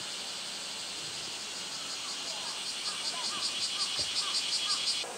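Cicadas singing in a steady high buzz. A louder pulsing song of about five beats a second builds from about two seconds in and cuts off suddenly near the end.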